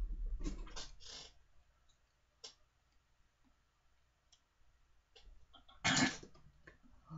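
A person gagging on a foul-tasting BeanBoozled jelly bean: a few short breathy mouth sounds near the start, then one loud retch about six seconds in.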